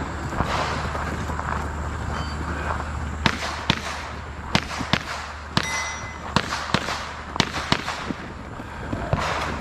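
Glock pistol shots fired in a string, starting about three seconds in, roughly two a second and several in quick pairs.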